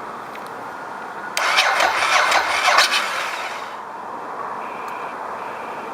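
The starter motor of a Ducati S2R 1000 cranks its air-cooled L-twin for about a second and a half, starting about a second and a half in, then dies away without the engine firing (the fuel pump is disconnected). The battery voltage sags under the starter's draw and the ECU resets, cutting the cranking off.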